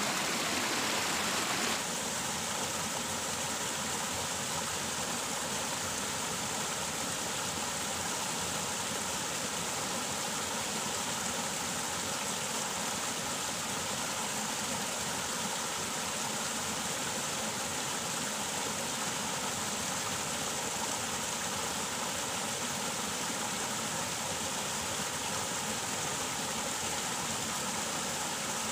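Water rushing steadily over a small weir and down a shallow irrigation ditch, a constant even rush. It drops slightly about two seconds in.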